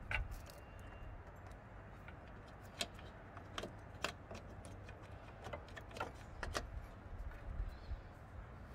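Faint scattered clicks and light rattles, about seven in all, from hands handling the wiring loom and plastic plug at an engine bay's mass airflow sensor, over a low steady rumble.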